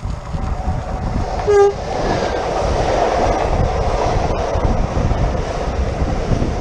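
Renfe class 447 electric train giving one short toot of its horn about a second and a half in, then running past. Heavy wind buffets the microphone throughout.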